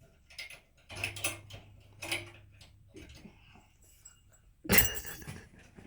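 Rattling and clicking of objects being handled, with a louder knock or clatter near the end.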